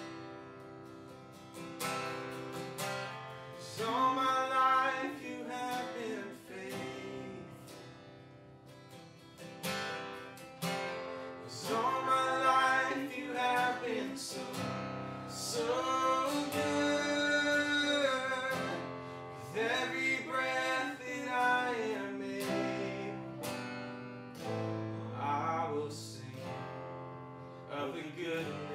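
Worship song played on a strummed acoustic guitar, with a voice singing in phrases over it.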